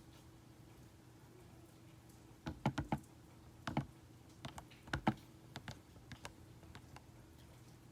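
Keys being pressed on the QWERTY keypad of a DYMO LabelManager 160 label maker. After about two and a half seconds of quiet come quick clusters of clicks with short pauses between them.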